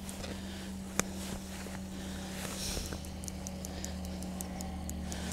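Salt being shaken from a small shaker over raw steaks on a wooden board: soft rattling swells and fine grains ticking onto the meat and board, with one sharp click about a second in, over a low steady hum.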